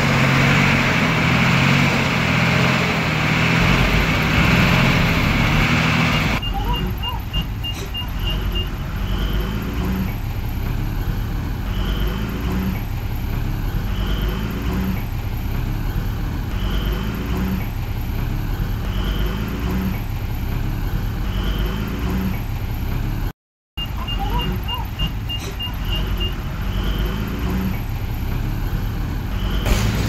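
Diesel engines of earthmoving machinery running, louder and rougher for the first six seconds. After that they run steadier under a reversing alarm: a quick run of high beeps, then a beep about every second and a half. The beep pattern starts over after a brief dropout near the end.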